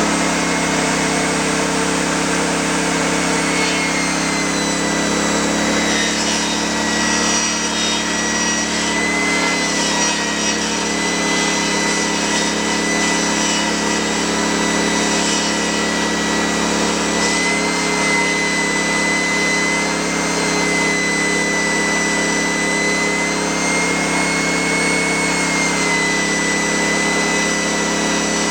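DeWalt DXGNI2200 inverter generator running a table saw: the saw's motor whines steadily while the generator's engine holds under the load. The engine note wavers a little in pitch now and then as the inverter adjusts to the load.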